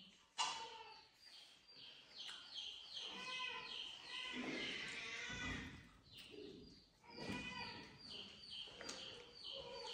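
Faint, rapid chirping of small birds: many short notes falling in pitch, several a second, with a sharp click about half a second in.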